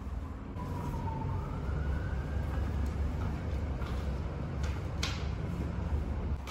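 Steady low rumble of outdoor background noise, with a faint wavering whine like a distant siren early on and a couple of light clicks about five seconds in.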